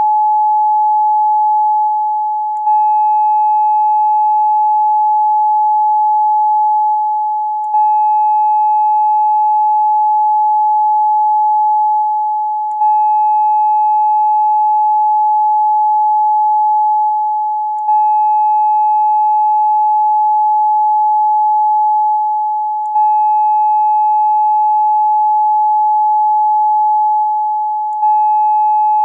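A steady 852 Hz pure tone, the solfeggio frequency used for third-eye chakra meditation, with faint higher overtones. About every five seconds the tone sags slightly and restarts with a faint click.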